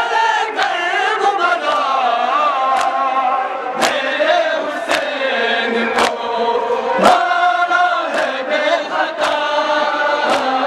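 Male voices chanting an Ashura noha in unison. Sharp matam strikes, hands beating chests together, fall about once a second and keep the beat.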